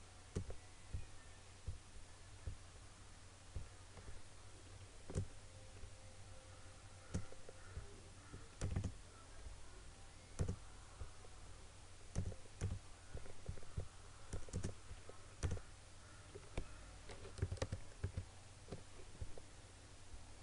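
Irregular computer mouse clicks and a few keyboard key presses, a few dozen spread unevenly, over a steady low hum.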